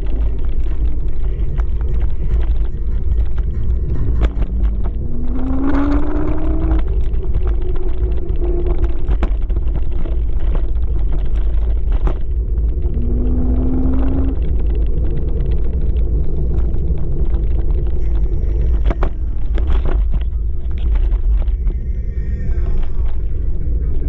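Heavy wind rumble on the microphone and road noise from a Kaabo Wolf King GT electric scooter on the move. A short rising whine from the scooter's hub motors is heard as it speeds up, about five seconds in and again about thirteen seconds in, with a few light knocks from bumps.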